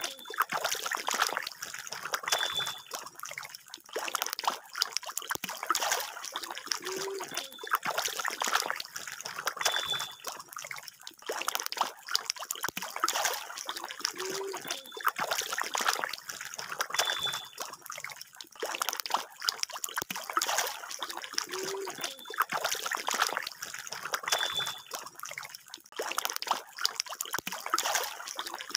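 A dense crowd of magur (walking catfish) thrashing at the pond surface, making a continuous patter of small splashes and churning water.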